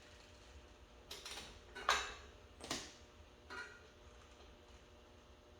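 A few short clicks and knocks of tools and small engine parts being handled, the loudest about two seconds in, with no engine running.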